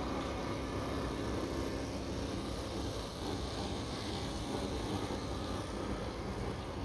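Steady background rumble of vehicle engines running at a distance, with no distinct events standing out.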